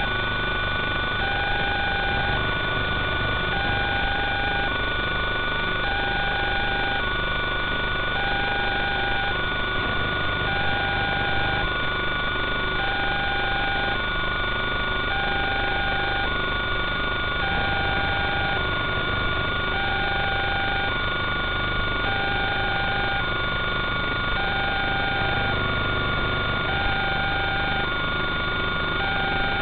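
A steady electronic hiss with constant high whining tones, and over it a repeating two-tone electronic beep that alternates between a lower and a higher pitch, each tone lasting under a second.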